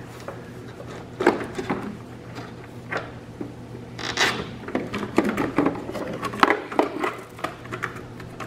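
Irregular plastic clicks, knocks and rattles as the airbox parts are handled and the engine control module is worked loose and lifted out, busiest in the second half.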